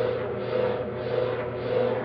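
Motor-driven kinetic sculpture turning, its mechanism whirring with a steady hum and a regular swell about twice a second.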